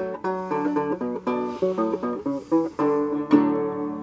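Ashborn banjo playing the closing phrase of a song as a quick picked melody, ending on a final strummed chord about three seconds in that rings out and fades.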